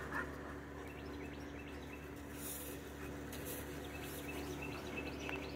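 Steady low background hum with faint, scattered bird chirps.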